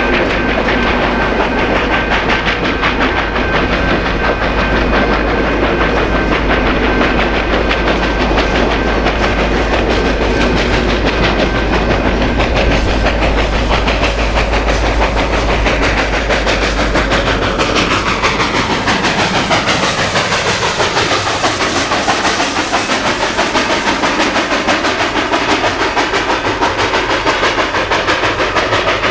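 A train running on rails, its wheels clattering steadily with a low rumble. A little past the middle the sound sweeps in pitch as the train moves past.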